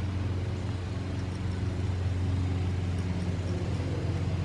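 A steady low mechanical hum, like an idling engine, running evenly throughout.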